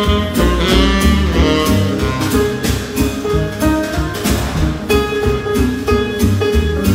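Swing jazz music with a steady beat, played for lindy hop dancing.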